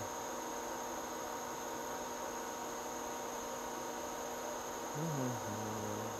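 Steady hiss with a faint, constant electrical whine of several fixed tones. About five seconds in, a man hums briefly and low, the pitch dropping and then holding level.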